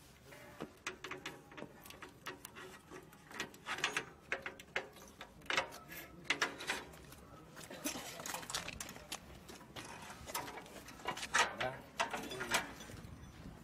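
Irregular metallic clicks and clatters of a steel control cable and its clamp being handled and fitted onto a walking tractor's handlebar.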